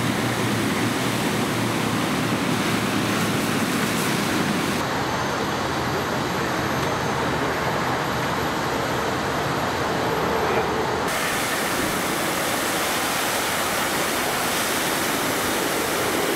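Fire hose nozzle spraying foam: a steady rushing hiss, with a low engine hum underneath in the first few seconds. For several seconds in the middle the sound turns duller as the high hiss drops away, then the full spray noise returns.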